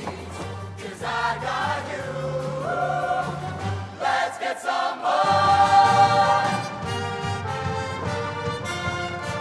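A show choir singing long held chords without clear words, swelling to its loudest, fullest chord about five seconds in.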